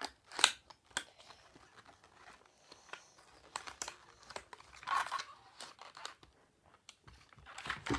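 Packaging of a set of eraser toys being torn open and crinkled, with scattered small clicks and rustles. The sharpest snap comes about half a second in, and there is a busier stretch of rustling in the middle.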